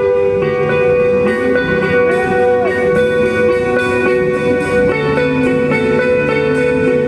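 Instrumental post-rock band playing live: layered, sustained electric guitar lines over drums, with cymbals keeping a steady beat.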